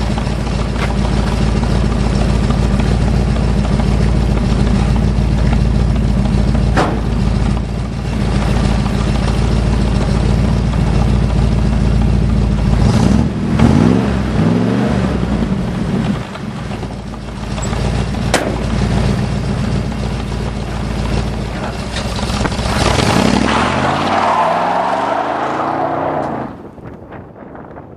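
Big-block V8 of a 1972 Ford F-100 (390 FE) running through Hooker headers and glass-pack dual exhaust, a loud deep exhaust note. It holds steady for about the first half, then the note rises and falls twice. The sound drops away sharply near the end.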